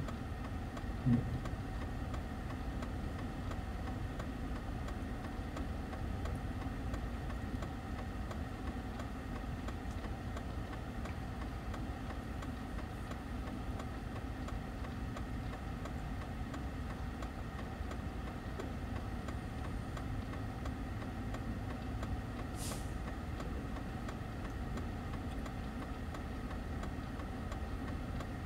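Steady car engine hum and cabin noise, heard from inside the car. A brief low sound about a second in and, later, a single faint click.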